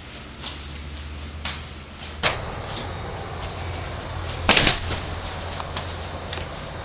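A few sharp knocks and clicks over a steady low hum, with a louder thump about four and a half seconds in.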